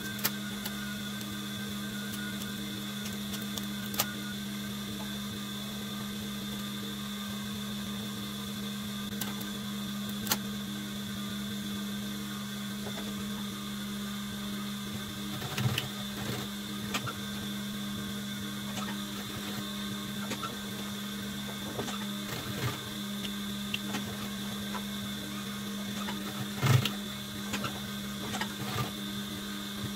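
Protex industrial sewing machine running with a steady motor hum as denim is fed through under the presser foot. A few sharp knocks sound over it, the loudest near the end.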